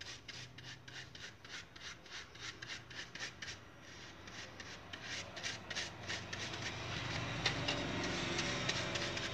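Stiff flat paintbrush rubbing and dabbing silver glitter onto the rough, crumpled surface of a papier-mâché dome: a dry, scratchy brushing at about four strokes a second. In the second half the strokes run together and grow louder, and a low hum builds up underneath.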